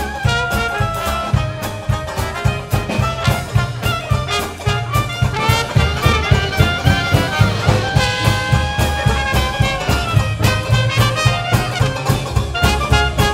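Traditional jazz band playing live: trumpet and clarinet play melody lines together over banjo, bass and drums keeping a steady beat. About two-thirds of the way through, the horns hold longer notes before going back to quicker phrases.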